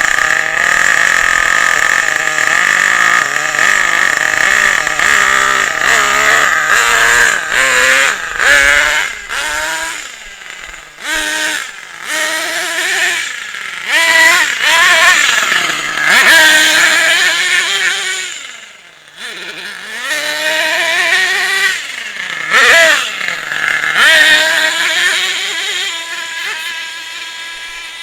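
The small two-stroke engine of a radio-controlled car, revving up and down over and over as it is driven. Its pitch holds steady for the first few seconds, then rises and falls repeatedly, dropping away briefly a few times.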